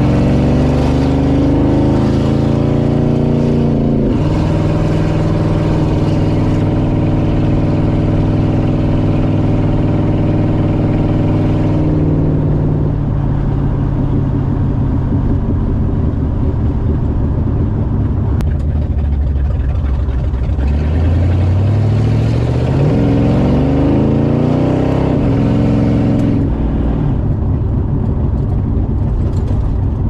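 1968 Dodge Charger's 383 big-block V8 accelerating. Its pitch climbs and drops sharply at a gear change about four seconds in, then holds steady before easing off. About two-thirds of the way through it pulls hard again and shifts once more. The exhaust leak has been freshly repaired.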